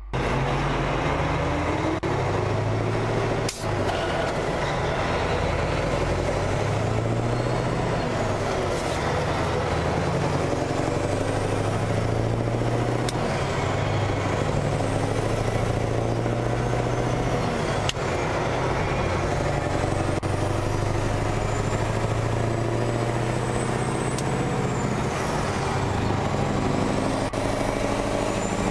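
Lorry's V8 diesel engine running steadily at motorway cruising speed, heard from a camera mounted outside the cab, under constant road and wind noise. A single sharp click about three and a half seconds in.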